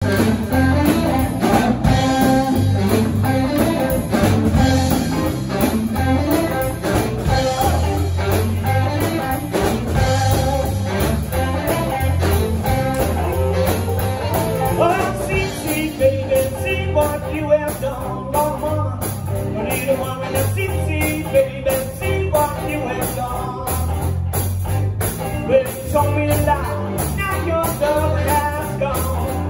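Live blues band playing: electric guitar, drum kit and saxophone, with a man's lead vocal coming in about halfway.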